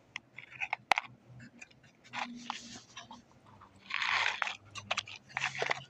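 Small jewelry packaging being handled as earrings are pried out of it: a sharp click about a second in, then three short bouts of crinkly rustling.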